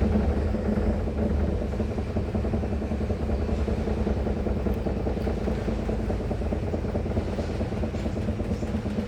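Washing machine drum spinning fast on its spin cycle: a steady mechanical rumble with a rapid, even beat.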